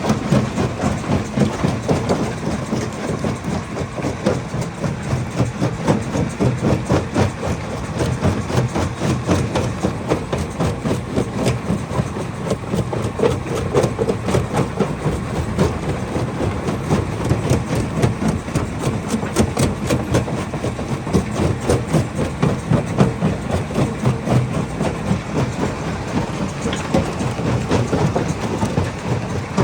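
Hammer crusher running with rock inside it, a dense, continuous clatter of rapid knocks over a steady low machine hum.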